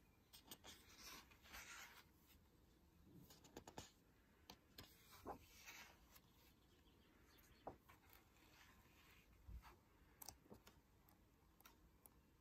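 Faint rustling and soft taps of paper as the pages of a large hardback book are turned and smoothed by hand, in scattered swishes and light clicks.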